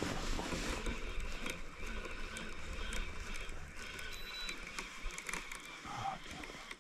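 Fishing reel being cranked to retrieve a lure, a steady whirring with small clicks, over a low rumble on the microphone that fades out about four seconds in.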